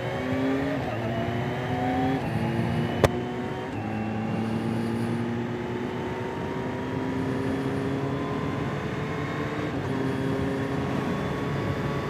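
Kawasaki Z H2 SE's supercharged inline-four engine pulling up through the gears. Its pitch rises in each gear and drops at upshifts about 1, 2, 4 and 10 seconds in, over wind rush. A single sharp click about 3 seconds in.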